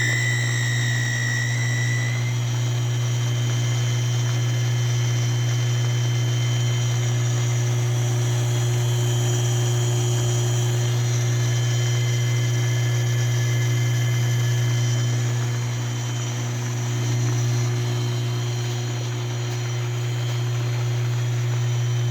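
Kawamoto N3-206SH well pump's electric motor running with a steady loud hum and fainter high whining tones, with a shrill whine at the start that fades after about two seconds. This is the abnormal noise the seller reports from this pump.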